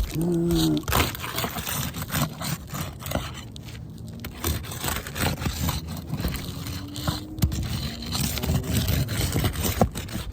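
Irregular scraping with sharp crackles and clicks from brittle asphalt roof shingles being worked and lifted during a repair.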